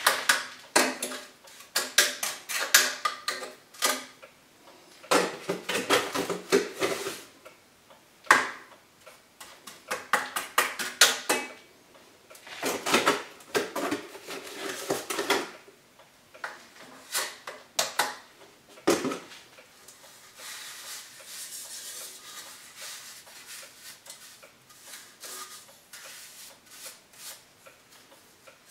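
Hand-work noises: a plastic bag crinkling and hands knocking and rubbing against a black sheet-metal stove pipe, with many sharp clicks and clinks. A hard knock about eight seconds in and another near nineteen seconds are the loudest; after that the sounds thin to a faint rustling and scraping.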